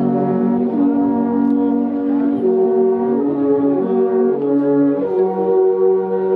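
An ensemble of alphorns playing together: several long wooden horns holding notes in chords that shift every second or so.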